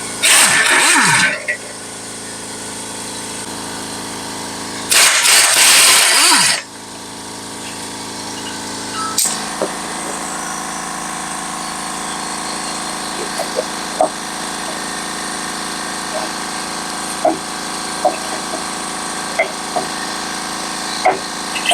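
Impact wrench running in two bursts of about a second each, about five seconds apart, each winding down with a falling pitch as it loosens the 17 mm bolts on the RAV4's sway bar bushing bracket. After the second burst come scattered light clicks and taps of metal being handled.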